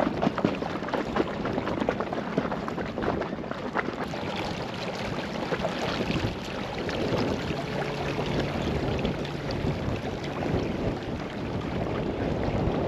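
Wind buffeting the microphone and water splashing against the hull of a small inflatable boat under way, as an irregular rushing noise.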